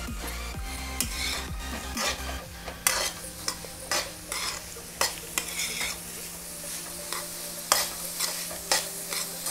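A steel spoon stirring and scraping vegetables in a kadhai, clinking against the pan at irregular moments, over the steady sizzle of the vegetables frying in oil.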